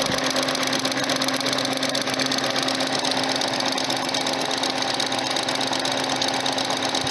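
Homemade four-pole Newman-type motor spinning at high speed: a steady mechanical whir with an even hum underneath.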